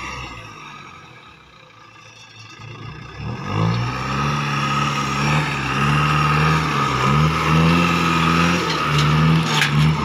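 Six-wheel cargo truck's diesel engine revving under heavy throttle as it drives through soft, muddy ground. The engine comes up about three seconds in and rises and falls in pitch several times as the driver works the throttle, getting louder as the truck draws close.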